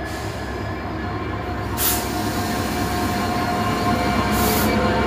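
British Rail Class 66 diesel-electric locomotive, with its EMD two-stroke V12 engine, hauling a container freight train past at close range; the engine and wheels run steadily and grow louder as it draws level. Two short, sharp hisses come about two seconds and four and a half seconds in.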